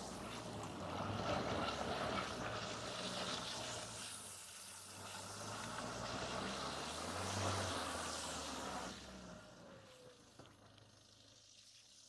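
Opel Astra estate's engine running under load as the car crawls through deep mud, with a steady hiss of tyres and mud beneath it. The engine swells about seven seconds in, and all of it falls much quieter after about nine seconds.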